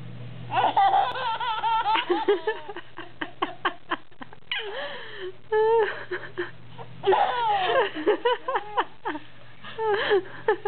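A woman and a baby laughing in repeated bursts, with a run of quick laughs about two to four seconds in.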